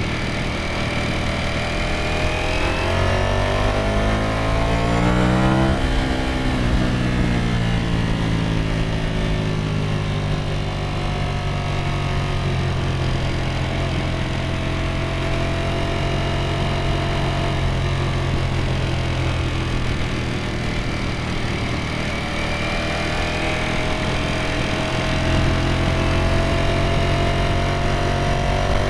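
Ducati Streetfighter V4S's 1103 cc V4 engine and exhaust under way, easing off at first, climbing in revs and dropping back a few seconds in, running steadily at cruise through the middle, then rising in pitch again near the end as it accelerates.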